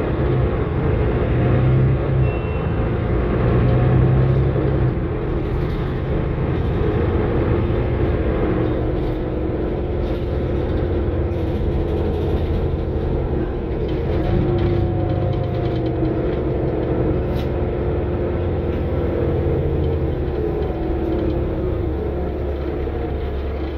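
Interior of a Mercedes-Benz Citaro single-deck bus on the move: the diesel engine and ZF automatic gearbox running under a steady road rumble, the engine note rising and falling several times as the bus speeds up and eases off.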